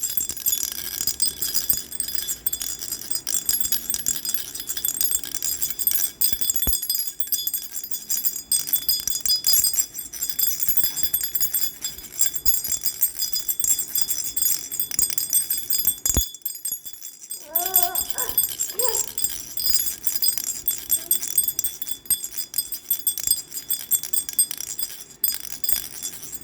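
A baby rattle shaken continuously, giving a bright, busy jingling with many small high ringing tones and rapid clicks. A single sharp click comes a little past halfway, followed by a brief pitched call.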